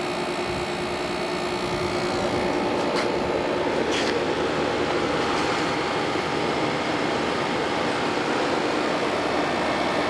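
Comfort Aire 15,100 BTU window air conditioner running steadily, its GMCC compressor and its fan on low speed making an even running noise with a few faint steady tones. It sounds really nice: the unit is working and cooling.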